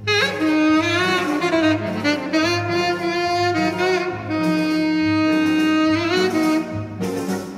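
Tenor saxophone playing a jazz melody over a string orchestra, entering with an upward scoop and later holding one long note, with a pulsing bass line underneath.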